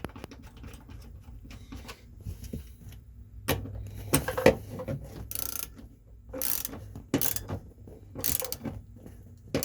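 Socket ratchet clicking as a 17 mm seatbelt anchor bolt is run in and tightened: quick fine clicks at first, then short ratcheting strokes about once a second from about three seconds in.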